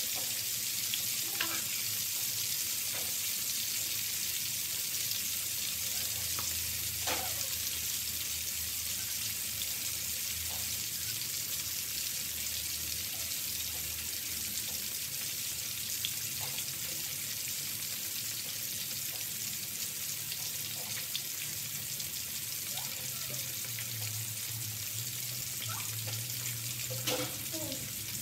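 Fish pieces deep-frying in hot oil in a wok: a steady high sizzle with occasional sharper pops, a couple of them louder about seven seconds in and near the end.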